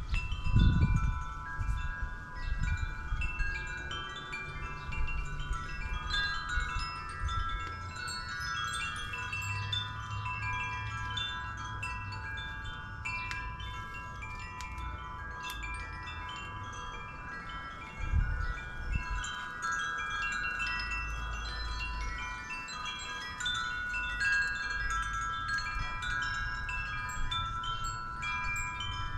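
Metal wind chimes ringing steadily, many overlapping notes with long-held tones beneath them. A few low bumps of handling come near the start and again about two-thirds of the way through.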